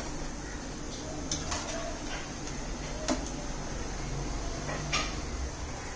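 Steady low background hum with a few light clicks scattered through it.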